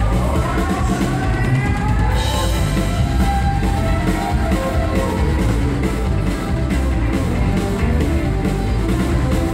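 Live amplified country-rock band playing an instrumental passage: electric and acoustic guitars, fiddle and a drum kit with a steady beat.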